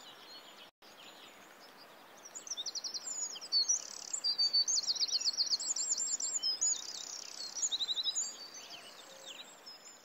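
Small songbirds singing, several rapid trilled phrases and chirps over a faint steady hiss; the song builds about two seconds in and thins out near the end.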